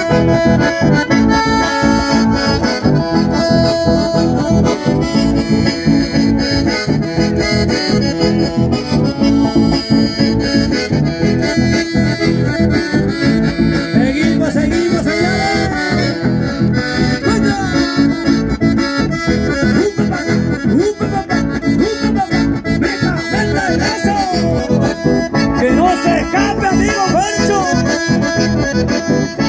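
Chamamé music led by an accordion, playing loudly with a steady dance rhythm.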